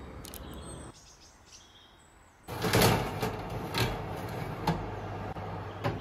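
Scattered knocks and clatters over a steady background hiss. They start suddenly about two and a half seconds in, after a brief lull, with four or so sharper knocks spread over the rest of the time.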